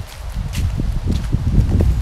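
Low rumble of wind on the microphone, setting in about half a second in and growing louder, over footsteps and paws rustling through fallen dry leaves.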